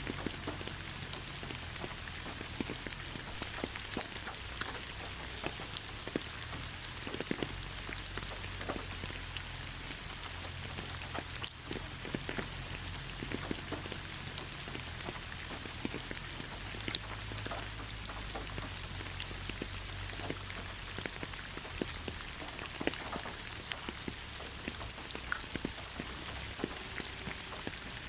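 Steady rainfall: an even hiss with many separate drops ticking sharply and irregularly close to the microphone, and a low rumble underneath.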